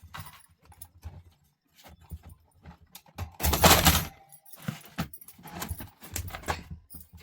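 Irregular clicks, taps and light rattles of a table fan's plastic and metal parts being handled, with one louder scraping rustle about halfway through.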